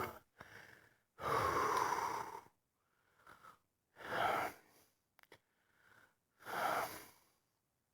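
A man breathing hard: three long, noisy breaths a couple of seconds apart, the first the longest. He is catching his breath after smothering himself to stop his hiccups.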